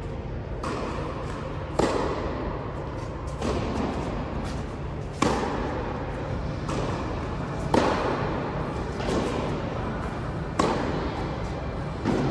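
Tennis rally in a large indoor hall: racket strikes and ball bounces, each with a short echo. A hit comes roughly every second or two, the loudest about every two and a half seconds.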